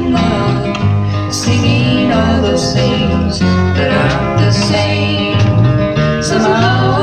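Early-1970s folk-rock band playing a passage without transcribed lyrics: guitars over a moving bass line and drums.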